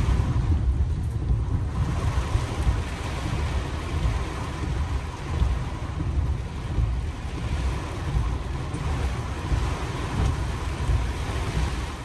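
Heavy rain and gusting wind of a severe thunderstorm: a steady hiss over a deep, uneven rumble.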